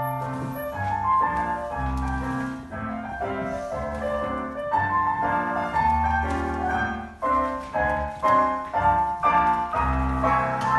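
Piano music in a classical style, with melody notes played in phrases over low sustained bass notes.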